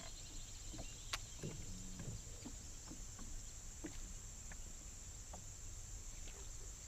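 Steady high-pitched drone of insects, with scattered faint clicks and taps, one sharper click about a second in.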